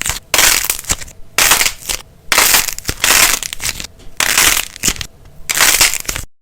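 Slime being squeezed and pressed by hand, making about six loud bursts of crackling noise roughly a second apart; the sound cuts off suddenly near the end.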